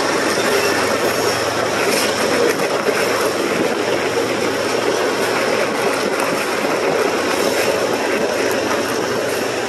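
Steady rushing of wind over the microphone and tyre noise from riding fast on a dirt trail, mixed with the running of a coal train alongside.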